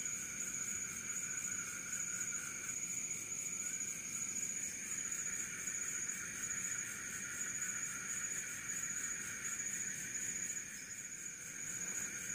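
Night chorus of insects: several steady high trills at different pitches overlap, one of them with a fast pulse, and a lower trill drops out about a third of the way through.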